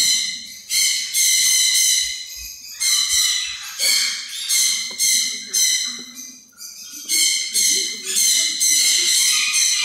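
High-pitched animal squealing calls repeated throughout, each lasting about half a second to a second with short gaps between.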